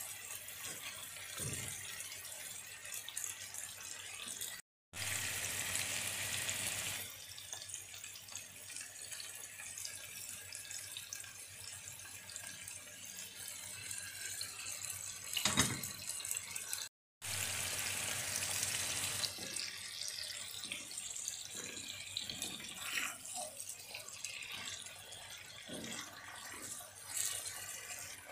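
Oil sizzling steadily in a cast-iron skillet under raw potato slices, with a few short knocks and scrapes from spooning and stirring. The sizzle cuts out twice for a moment, each time coming back louder for a couple of seconds.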